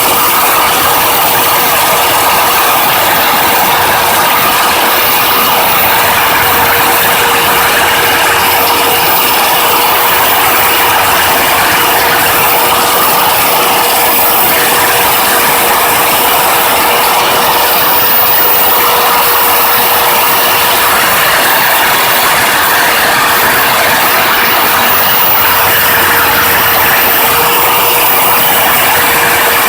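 Lathe running steadily while milling keyway slots, with a constant gear whine over dense mechanical and cutting noise.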